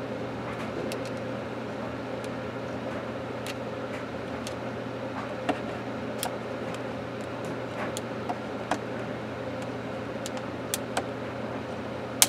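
Scattered sharp clicks and creaks of a Panasonic 5.8 GHz cordless phone handset's plastic shell being flexed and pried by hand, its snap clips straining without letting go. The louder clicks come in the second half, the loudest about halfway through. A steady low hum runs underneath.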